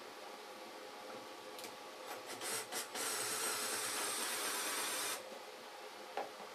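Cordless drill boring a hole through a router table insert plate. A few short pulses come first, then about two seconds of steady drilling that cuts off suddenly. A single click follows near the end.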